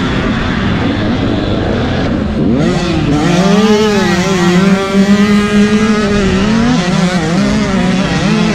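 Motocross dirt bike engine running hard on the track; the revs drop briefly, sweep up quickly about two and a half seconds in, then hold high and waver.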